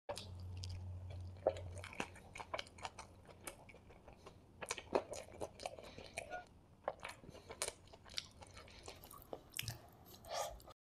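A person chewing a bite of chicken chappathi roll, with many short wet mouth clicks and smacks. A low hum sits under the first two seconds.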